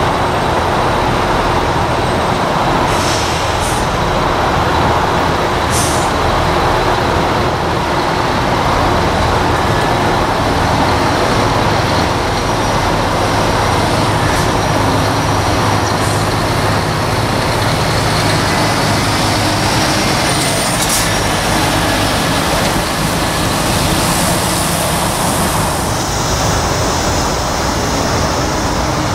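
Heavy diesel lorries (articulated tractor units with trailers) running and pulling away slowly, a steady engine rumble, with several short sharp air-brake hisses.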